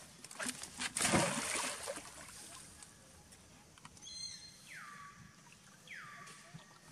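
A young macaque jumps into pool water with a splash about a second in, then water laps and trickles as it swims along the stone wall. Near the end an animal gives two short calls that fall in pitch and then hold steady.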